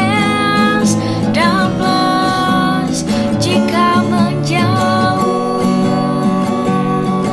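A girl singing a song over instrumental backing music, holding long sung notes.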